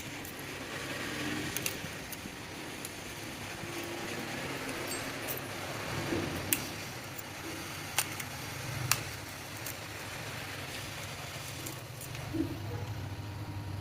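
Scattered sharp clicks and light taps, a few sharp ones spread over several seconds, over a steady low hum.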